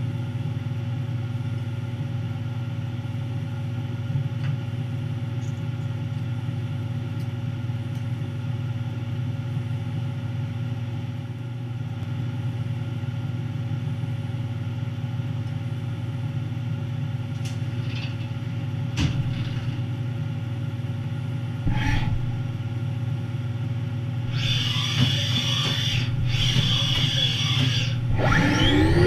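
Haas 5-axis CNC mill running with a steady machine hum and a few sharp clicks. About two-thirds of the way through come two bursts of hiss, then near the end a rising whine as the spindle speeds up.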